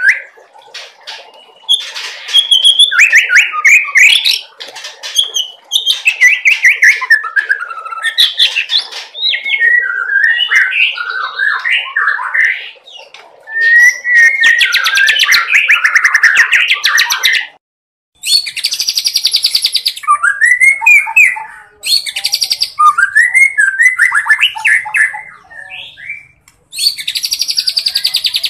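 A young white-rumped shama singing a loud, fast, varied song of whistled glides and quick notes. After a short break a little past halfway, the song turns to rapid buzzy rattles alternating with looping whistles.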